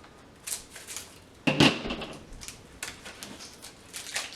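Scattered clicks and crinkles of a Hershey's chocolate bar and its wrapper being handled, with one louder knock about a second and a half in.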